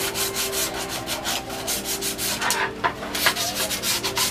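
Sandpaper rubbed by hand over the wall clock's frame in quick back-and-forth strokes, about four a second, roughing the surface so paint will grip.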